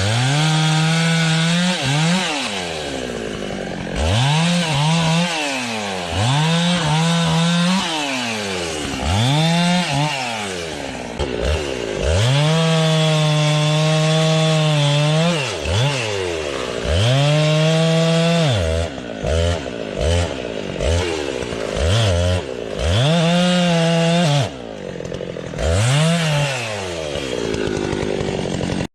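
Two-stroke chainsaw revving up to full throttle and falling back toward idle over and over as it cuts through logs. Most cuts are short, with one longer steady run at full speed about halfway through and a few quick throttle blips after it.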